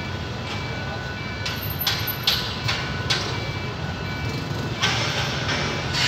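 Level-crossing warning signal beeping in short repeated tones over a steady low rumble, with a few sharp knocks about two seconds in and another near the end.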